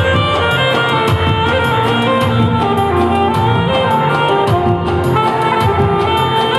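Saxophone played live, holding long notes in a melody over a backing track with a steady beat.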